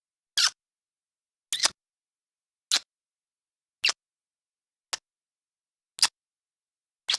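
Lip-smacking kiss sounds, one short smack about every second with dead silence between, seven in all; the second is a quick double smack.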